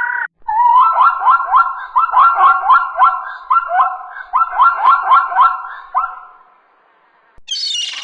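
An animal giving a rapid series of short, high calls, each sliding up in pitch, about three a second, that stop about six seconds in. A brief shrill call follows near the end.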